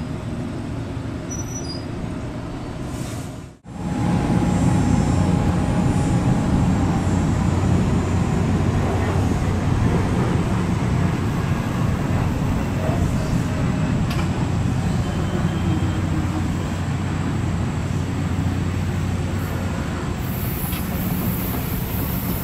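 NJ Transit bi-level commuter train rolling past, a steady rumble of wheels on rail with a low hum. The sound breaks off for an instant about three and a half seconds in, then carries on louder and steady.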